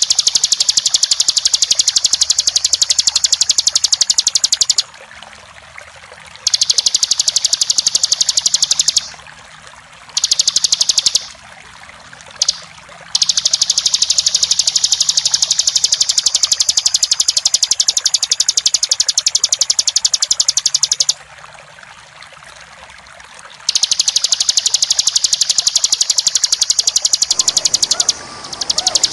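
Bar-winged prinia (ciblek) singing its continuous rapid, high-pitched rattling trill ("ngebren") in long runs of several seconds, broken by short pauses, over the sound of flowing water.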